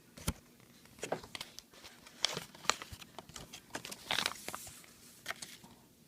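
Small plastic toy and its packaging being handled: irregular light clicks and crinkling.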